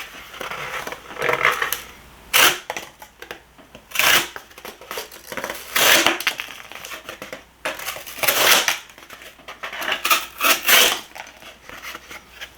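Cardboard being sliced with a sharp folding knife blade: about six separate cuts a second or two apart, each a short noisy rasp, with lighter rustling of the cardboard between them.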